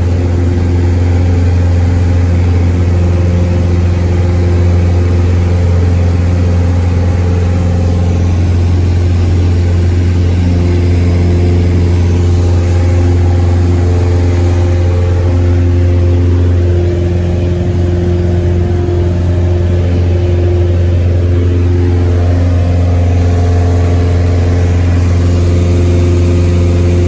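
Piper Arrow's piston engine and propeller at takeoff power, heard from inside the cabin: a loud, steady drone over a strong low hum, through the takeoff roll and the climb-out.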